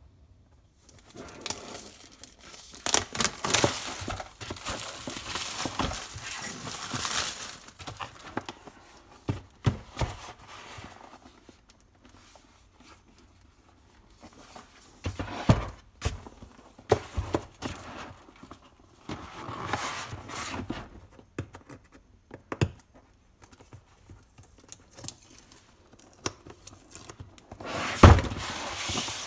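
Packaging being handled during a laptop unboxing: rustling and crinkling in several bursts, with knocks from the box and a loud thump near the end.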